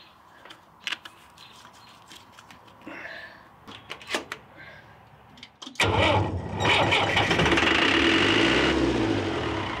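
A few faint clicks of wires and parts being handled. About six seconds in, the Caterpillar 3054B four-cylinder diesel is cranked and starts, then runs loudly and steadily, its speed rising and falling slightly.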